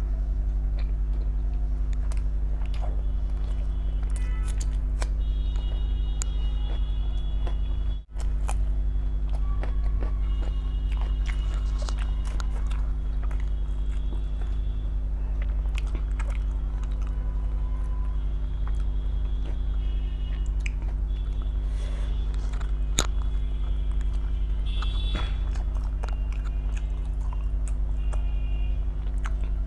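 Close-up eating sounds: chewing and biting with small wet mouth clicks, over a steady low electrical hum. The sound drops out for an instant about eight seconds in.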